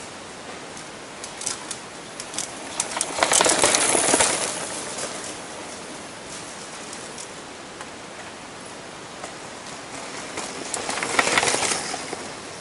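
Downhill mountain bikes passing on a dirt forest trail, two of them: tyres scrubbing through dirt and leaves with the bike rattling and clicking. One rushes by about three seconds in and another near the end, over a steady background hiss.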